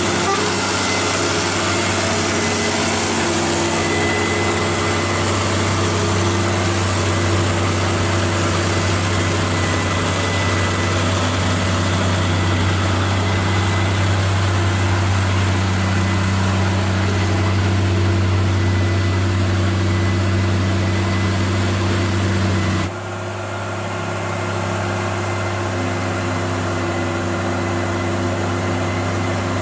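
Heavy truck engine running steadily and loudly, with a deep, even note. About three-quarters of the way through the sound drops abruptly and carries on a little quieter, with a changed pitch pattern.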